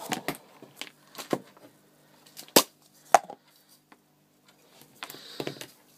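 Handling sounds of a laptop's metal heatsink assembly on a work surface: a series of separate sharp clicks and knocks, the loudest about two and a half seconds in, then a short rustle near the end.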